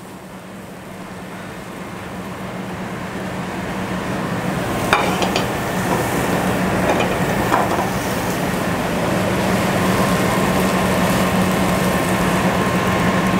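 Commercial kitchen noise: a steady low hum and hiss that slowly grow louder, with a few metal clinks from a spoon scraping cooked food out of a frying pan into a bowl.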